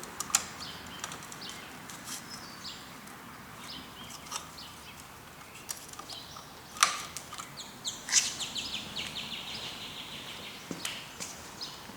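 Light clicks and taps of a modified caulk-gun plunger tool being worked into the back of a Daisy Model 99 BB gun, with two sharper knocks about seven and eight seconds in, the second followed by a quick run of high ticks lasting about two seconds.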